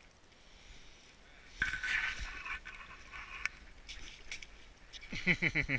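A hooked bass splashing and thrashing in the ice hole as it is hauled up through it, starting suddenly a little over a second and a half in, with a few sharp knocks after. Near the end a person laughs.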